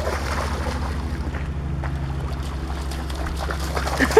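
A dog splashing as she runs and wades through shallow river water, chasing a thrown stone, over a steady low rumble of wind on the microphone.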